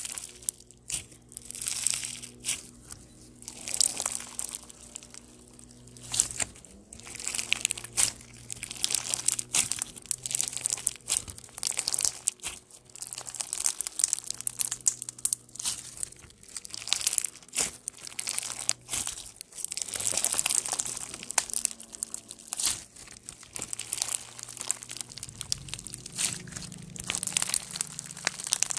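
Crunchy bead-filled slime, clear slime packed with green and clear beads and pink foam beads, squeezed and stretched by hand. It gives off dense crackling and popping that swells and fades with each squeeze.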